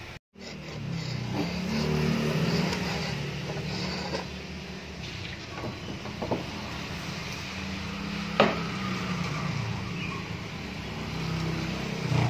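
An electric woodworking power tool, likely a circular saw, running steadily, with a few sharp knocks of wood, the loudest about eight seconds in.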